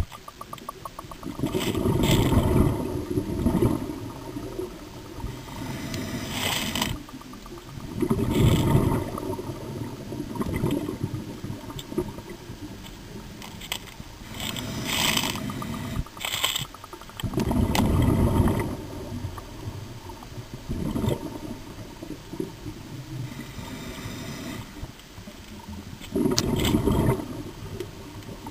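Scuba regulator breathing heard underwater: rumbling bursts of exhaled bubbles about every eight to nine seconds, with shorter hissing breaths between them.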